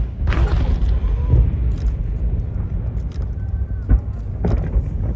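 Aerial fireworks bursting: deep booms over a continuous low rumble, with several sharp cracks, the loudest about four seconds in. Crowd voices are faintly underneath.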